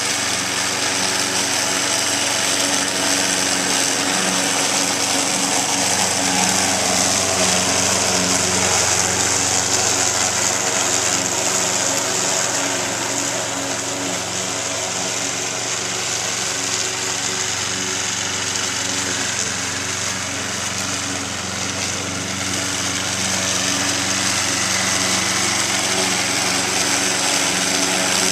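Walk-behind gasoline lawn mower running unattended at a steady engine speed as it drives itself in a circle around a central pole, sounding a little fainter midway as it swings to the far side of the circle and nearer again toward the end.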